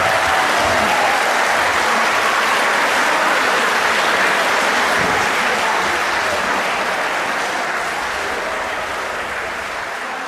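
Large crowd cheering and applauding, a dense wash of clapping and voices that holds steady and then slowly fades away over the last few seconds.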